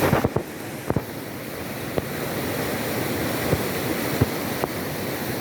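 Steady rush of waterfall water, churning after rain, with a few short knocks: a cluster at the start, then single ones scattered through.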